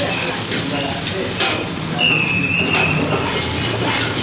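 Egg sizzling in a steel wok over a gas flame while a metal ladle stirs and scrapes through it. A brief high squeal comes in about two seconds in.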